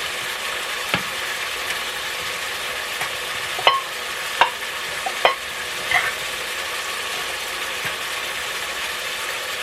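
Ground beef sizzling in a Presto electric kettle, a steady hiss, with about five sharp clinks and knocks spread over the first six seconds.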